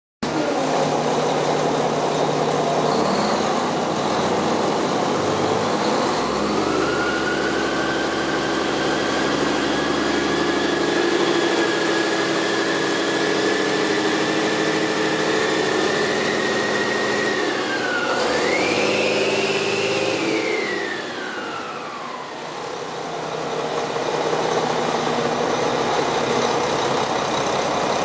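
2007 Mack CHN613 truck's diesel engine idling, then raised to a fast idle about six seconds in and held, with a high whine that climbs with the revs. It drops back, is blipped once more around twenty seconds, and settles back to a steady idle.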